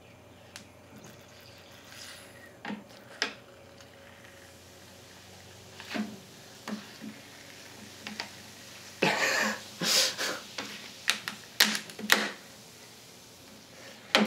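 Draft Top can-lid cutter being twisted around the top of an aluminium soda can: scattered clicks and crackles, then a cluster of louder crunching bursts about nine to ten seconds in as the can is crushed and soda leaks out.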